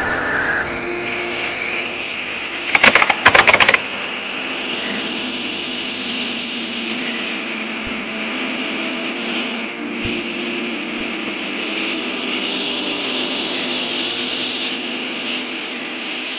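Homemade glass rocket engine burning R600 gas and pure oxygen, giving a steady hiss. About three seconds in, a rapid cluster of sharp cracks as the glass combustion tube shatters, and the burner keeps hissing after.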